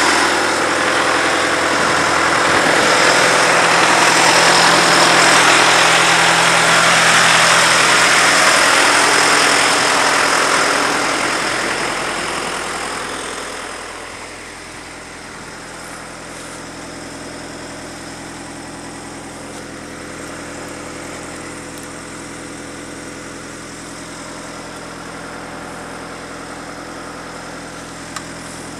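Engine of a 22W cable tool drill rig idling steadily, loud at first and then fading to a lower, even level about 12 to 14 seconds in.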